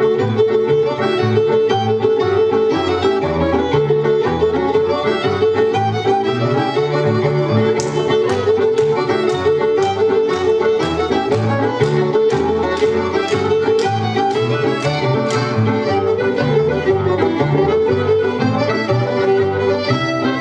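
Recorded fiddle tune for the jig, with a steady dance beat. About eight seconds in, sharp claps join over the music about twice a second for some seven seconds.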